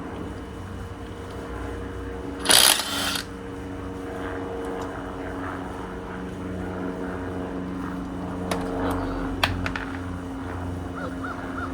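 Steady mechanical hum of a running machine. A short, loud hissing burst comes about two and a half seconds in, and a few sharp clicks near the end.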